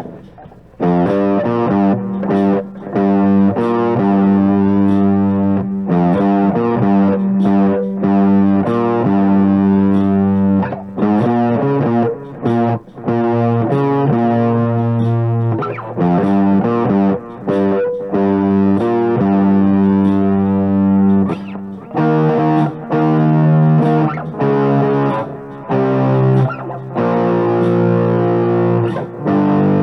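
Overdriven electric guitar, an Epiphone Les Paul Standard through a Flamma FC07 drive pedal and a small JOYO MA-10B amp, playing ringing chords with short breaks between them, over a backing drum track with faint regular cymbal ticks.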